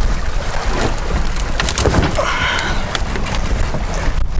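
Wind buffeting the microphone while choppy waves slap and splash against the hull of a small pack canoe running with the waves. A brief pitched sound about halfway through.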